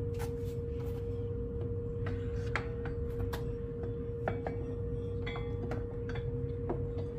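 A metal light-bar mounting frame knocking and clinking against the van's front-end structure as it is worked into place behind the grille, with scattered sharp knocks and a short metallic ringing a little past the middle. A steady hum runs underneath.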